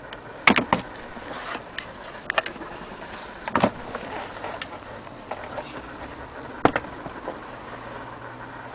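Irregular knocks and clicks, a few seconds apart, over a steady background noise.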